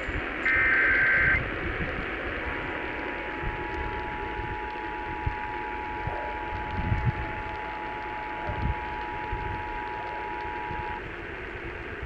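Emergency Alert System alert received over broadcast radio: about half a second in, a one-second burst of the SAME header's digital data tones, then after a short gap the steady two-tone EAS attention signal, which cuts off near the end. It marks the start of an alert, here a Civil Emergency Message test. Radio static hiss runs under it throughout.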